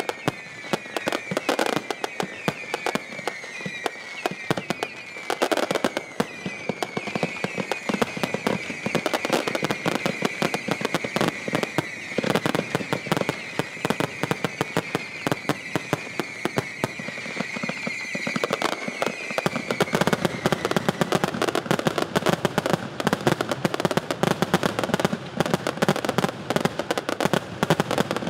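Aerial fireworks display: a dense, continuous volley of bangs and crackles from bursting shells, with a high wavering whistle over the first twenty seconds. The bangs grow denser and heavier about two-thirds of the way through.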